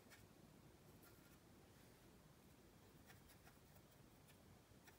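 Near silence: room tone with a few faint light ticks.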